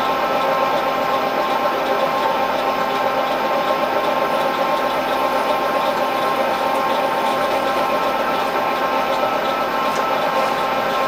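Milling machine running steadily, its spindle turning a boring head that opens up a drilled hole in a stainless steel crank web, with a steady hum carrying several constant tones.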